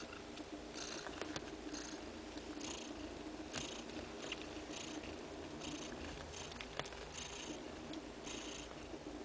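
Steady purring from a Neva Masquerade (Siberian) mother cat nursing her two-day-old kittens, with small clicks now and then.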